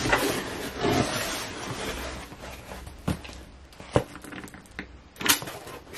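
Cardboard box flaps and plastic packaging rustling and crinkling as a parcel is unpacked by hand, with a few sharp taps and knocks, the loudest about five seconds in.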